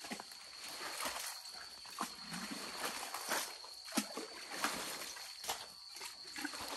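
A hoe chopping and scraping through wet mud and water, a stroke about once a second, with sloshing between strokes, as a buried spring is dug out and drained.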